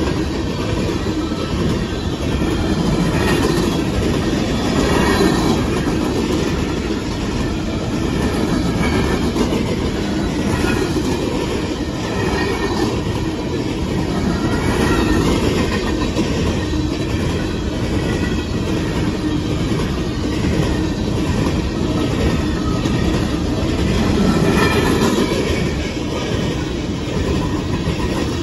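Empty coal cars of a freight train rolling steadily past a grade crossing: a continuous low rumble with the clickety-clack of steel wheels over the rail joints.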